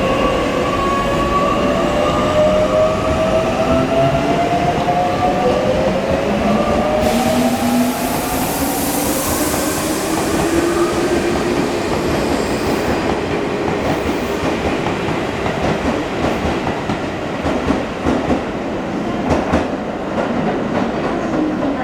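Electric subway/commuter train pulling out, its inverter-controlled traction motors whining in several tones that climb steadily in pitch as it accelerates. A burst of hiss about seven seconds in, then wheel clicks over the rail joints as the cars pass.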